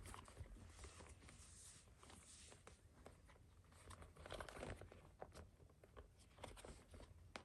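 Near silence: faint rustles and small clicks of a leather baseball glove and its laces being handled, a little louder about four seconds in.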